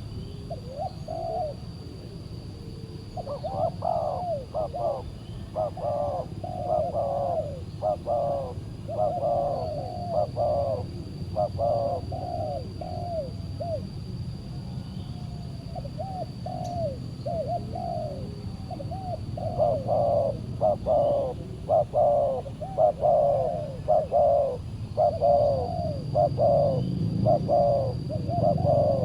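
Spotted doves (tekukur) cooing in long runs of quick repeated coo phrases, one bout from about three seconds in and a second from about halfway, with a short burst near the start.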